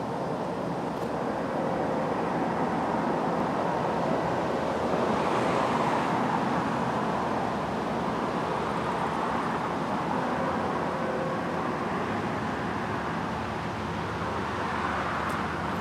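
Steady rumble of distant road traffic mixed with wind noise, swelling slightly about five seconds in.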